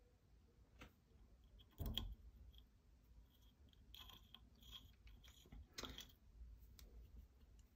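Faint clicks, taps and rubbing from hands handling lightsaber blade and emitter parts while small screws are fitted, with one louder knock about two seconds in and light clicks around four to six seconds.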